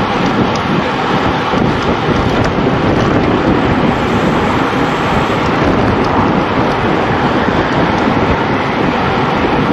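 Loud, steady wind noise buffeting the microphone of a handlebar-mounted camera on a road bike riding at speed.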